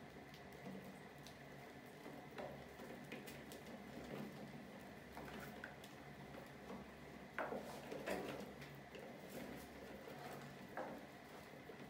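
Trapped mice scrambling inside a plastic bucket under a wire lid: scattered light scratches and taps, with a couple of louder knocks a little past the middle.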